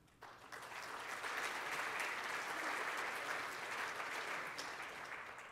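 Audience applauding. The clapping builds up over the first second and dies away near the end.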